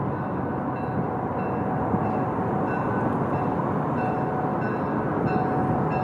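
Train running toward the listener with a steady rumble, and a bell ringing at an even pace, about one and a half strokes a second.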